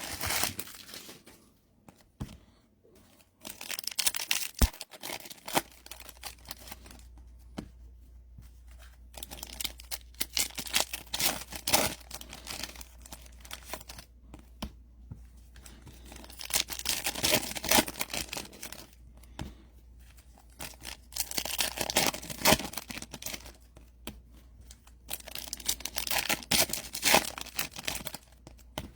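Foil trading-card pack wrappers being torn open and crinkled, in several separate bursts of ripping and rustling, over a faint steady low hum that comes in about five seconds in.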